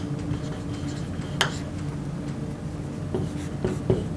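Marker pen writing on a whiteboard: short strokes, clustered toward the end, with one sharp tap about a second and a half in, over a steady low hum.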